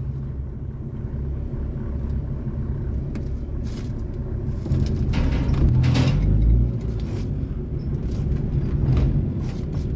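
Ford Verona's AP engine running and road rumble heard inside the cabin while creeping along in traffic. It swells for a couple of seconds about five seconds in, with a few light rattles and clicks.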